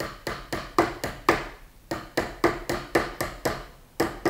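Steel creasing hammer tapping a copper bangle on a Delrin (plastic) anticlastic stake: light, even, rhythmic blows, about four a second, each with a brief ringing note.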